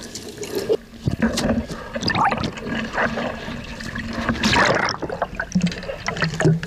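Seawater splashing and sloshing around a swimmer gripping the edge of a floating plastic pontoon dock, with waves lapping against the floats, heard from a camera at the waterline. There is a bigger splash about four and a half seconds in.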